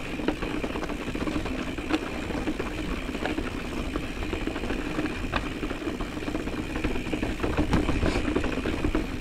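Mountain bike rolling over a rocky dirt trail: steady tyre and drivetrain noise with a constant hum, broken by frequent small clicks and rattles as the wheels hit stones.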